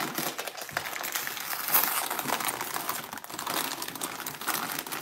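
Food wrappers crinkling steadily as they are handled and opened: aluminium foil around a slaw dog and a plastic chip bag.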